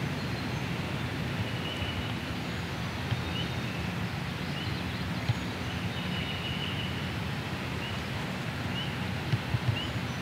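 Woodland ambience: a steady low rumble with a small songbird's faint chirps and short trills every second or two, and a few soft ticks near the end.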